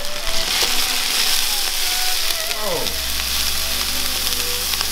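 Diced onion, minced garlic and ginger sizzling steadily in hot vegetable oil in a frying pan, stirred with a spatula.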